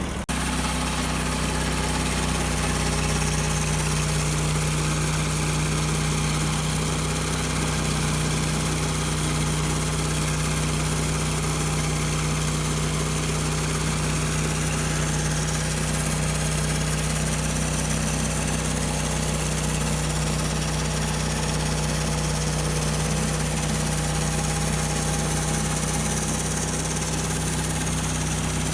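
Gasoline engine of a Norwood portable bandsaw mill running steadily under load as the band blade saws along a log, taking a board off.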